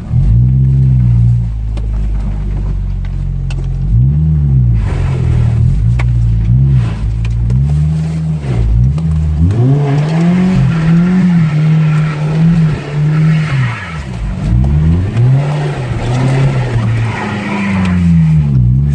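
Ford Ranger pickup's engine revving hard, its pitch rising and falling over and over as the throttle is worked through a slide on a wet gravel turn.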